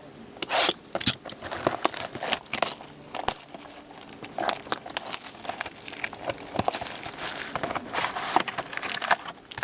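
Plastic shrink wrap being torn and crumpled off a sealed trading-card box, an irregular crinkling and crackling with many sharp little snaps.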